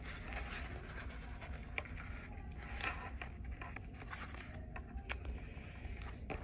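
Pink duct tape being peeled and pressed down by hand onto craft foam: soft rustling and scraping with scattered small clicks, over a steady low room hum.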